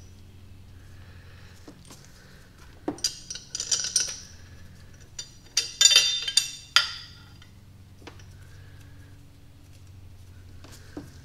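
Small steel head bolts clinking against one another and against the engine's metal as they are handled and hand-threaded into the cylinder head. The clinks come in two ringing clusters, about three seconds in and again around six seconds in, over a low steady hum.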